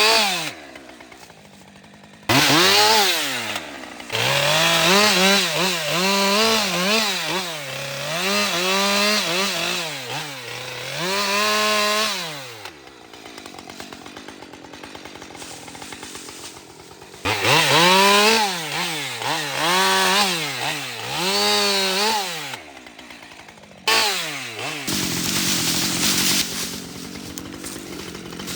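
Husqvarna 545 50cc AutoTune chainsaw cutting wood: the engine revs up and sags again and again as the chain goes through the cuts. It drops back to idle briefly near the start, for a few seconds around the middle, and again near the end.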